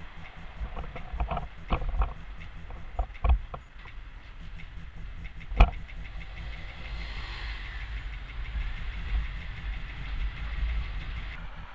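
Škoda 15T low-floor tram rolling slowly through a curve over a track crossing, its wheels knocking over the rail joints in a run of clacks, with one sharp clack about five and a half seconds in. A low rumble of the tram and passing traffic lies under it.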